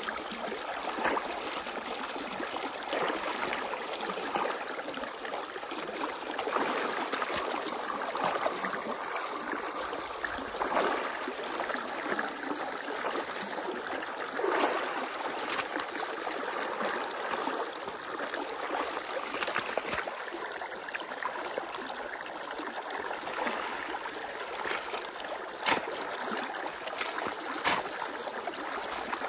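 Irrigation water rushing and gurgling steadily through an opened earthen check into a flooded field bay, with scattered short splashes and scrapes of a shovel digging mud in the water.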